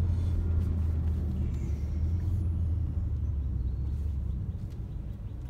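Low, steady engine and road rumble of a BMW X6 M with its twin-turbo V8, heard from inside the cabin while driving; it eases a little near the end as the car slows for a stop sign.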